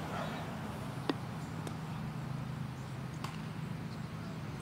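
Open-air background: a steady low hum, with a few short sharp clicks, the clearest about a second in.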